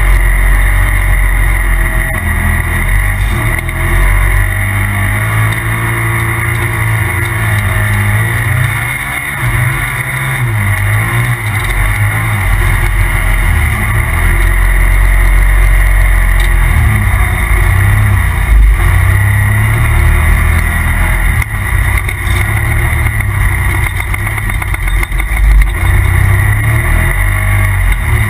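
A Polaris RZR Turbo side-by-side's turbocharged twin-cylinder engine running hard during a ride. The engine pitch rises and falls repeatedly as the throttle is worked on and off.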